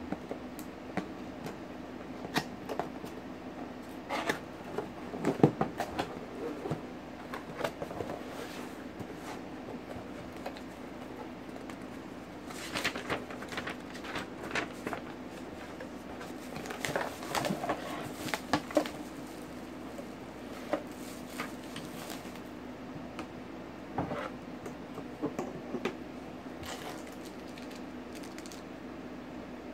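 Cardboard box being handled and opened, with irregular rustles, taps and scrapes of cardboard, bubble wrap and a small plastic bag. A steady low hum sits underneath.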